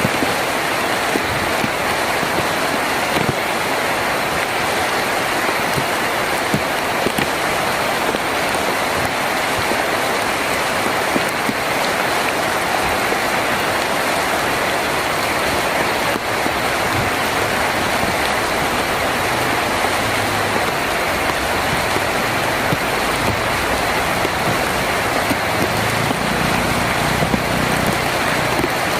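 Heavy rain drumming steadily on a tin roof, a dense even patter. A low rumble of distant thunder builds through the second half.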